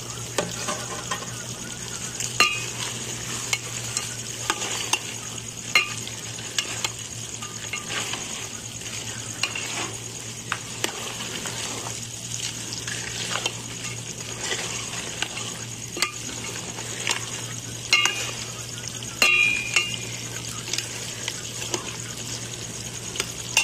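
Steel ladle stirring mutton and whole chillies in an aluminium pot, with frequent clinks and scrapes of the ladle against the pot over a steady sizzle of the meat frying.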